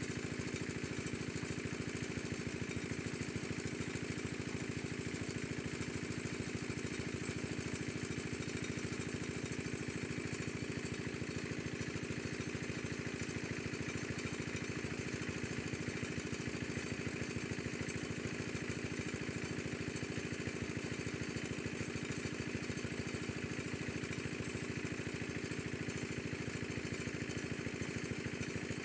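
A motor engine running steadily, an even, unchanging drone with no revving.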